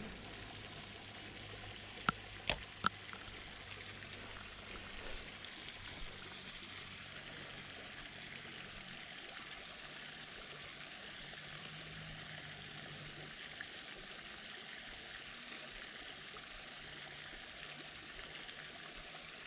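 Steady trickle of running water, with three sharp clicks about two seconds in.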